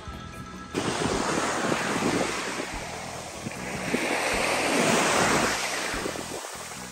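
Ocean surf breaking and washing, with wind on the microphone; the rush of the waves swells up toward the middle and eases off again.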